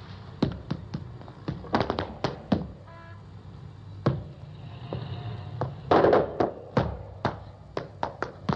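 Flamenco dancer's shoes stamping on a wooden floor: separate sharp heel and toe strikes at irregular spacing, with a louder cluster about six seconds in.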